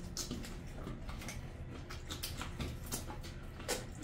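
Eating by hand: chewing, lip smacks and fingers mixing curry-soaked rice on a steel plate, heard as a scatter of small irregular wet clicks.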